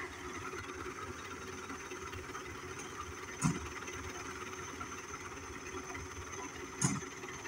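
Farm tractor diesel engines running steadily under load, hauling a heavy sugarcane trolley. Two short thumps stand out, one about halfway and one near the end.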